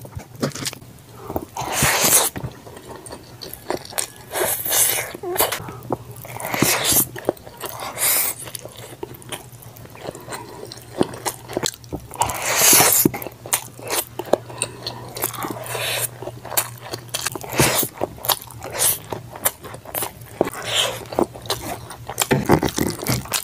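Close-miked wet chewing and mouth smacking from handfuls of sauced spaghetti and rice eaten by hand, in many short irregular bursts. About 12 seconds in comes a longer, louder slurp as a hanging bunch of noodles is sucked into the mouth.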